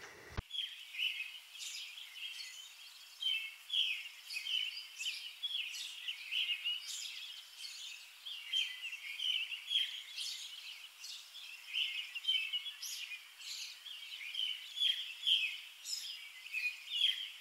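Birds chirping and calling outdoors, a dense run of short high chirps one after another.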